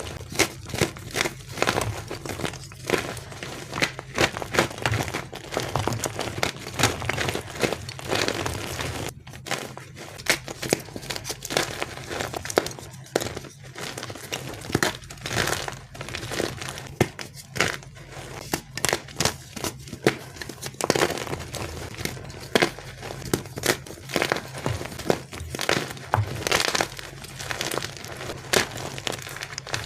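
Gym chalk being crushed and crumbled, a dense, irregular run of crunches and crackles.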